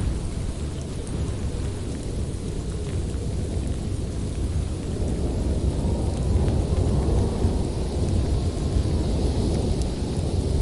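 Storm recording of low, steady rolling thunder rumble, with a fainter hiss of rain over it.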